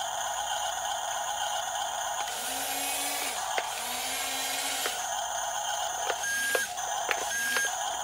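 Toy RC bulldozer's built-in engine sound effect playing through its small speaker: a steady, thin electronic engine drone. For a couple of seconds in the middle the toy's small drive motors whir as it moves, and near the end there are two short beeps.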